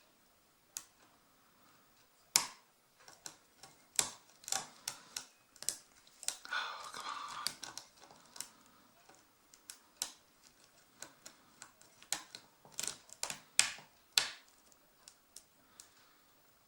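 Lock picks working inside a Brinks padlock: irregular sharp metallic clicks and taps from the hook pick and tension wrench, with a scratchy scrape lasting about a second and a half a little after six seconds in.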